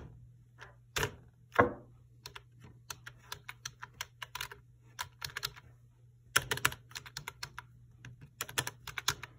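Typing on a laptop keyboard. A few louder clicks in the first two seconds, then quick runs of keystrokes with a short pause near the middle, over a faint low hum.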